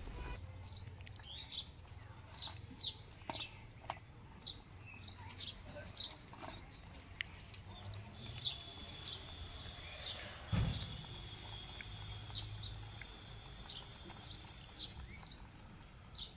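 Small birds chirping, short high calls repeating about twice a second. A thin steady high tone runs for about five seconds in the middle, and there is a single knock about ten seconds in.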